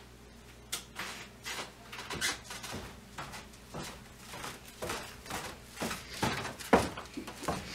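Rustling and knocking of laundry being handled and loaded at a front-loading washing machine: an irregular run of short scuffs and thumps, the loudest one near the end.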